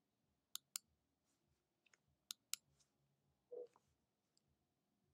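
Computer mouse clicking: two quick pairs of sharp clicks, the second pair about a second and three quarters after the first, plus a short low sound a little over halfway through.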